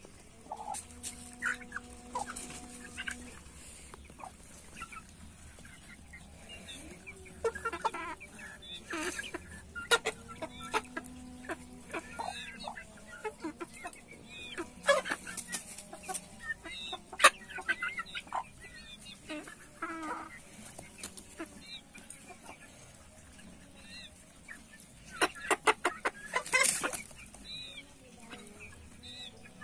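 A flock of young chickens clucking in short calls while they peck at the ground. Their beaks strike the dirt in sharp taps, sometimes in quick runs of several.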